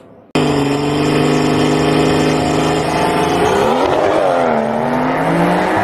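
Car engine at a drag race running hard at high revs, cutting in suddenly just after the start; about four seconds in its pitch sags and then climbs back up.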